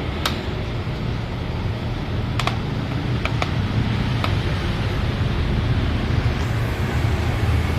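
A few small, sharp clicks while a laptop is being taken apart, over a steady low background rumble.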